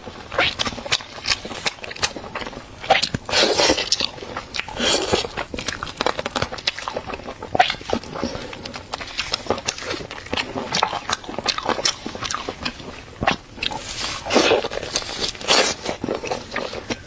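Someone biting and chewing food close to the microphone: a run of small sharp clicks, with four louder, longer bites, two around the fourth and fifth seconds and two near the end.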